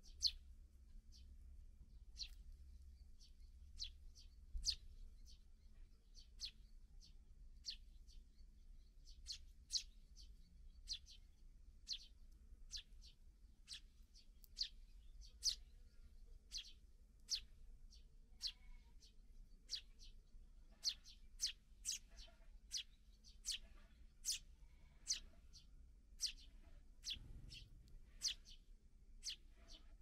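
Eurasian tree sparrows giving short, high chirps over and over, each one dropping in pitch, about one a second and coming faster in the second half.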